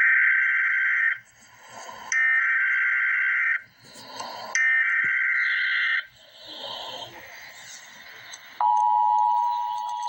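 Emergency Alert System header data: three harsh, buzzy digital bursts of about a second and a half each, separated by short pauses. About 8.5 seconds in, the EAS attention signal starts: a steady two-note tone announcing the alert message.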